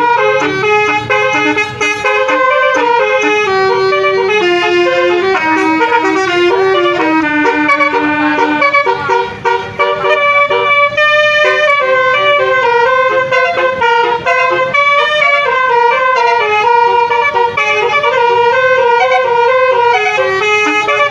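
Basuri telolet horn, a multi-note musical car horn, playing a continuous melody of held notes that step from pitch to pitch, with a brief dip about halfway through.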